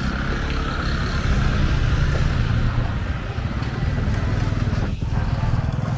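Street traffic: a motor vehicle's engine running close by, a steady low hum that swells a little about a second in.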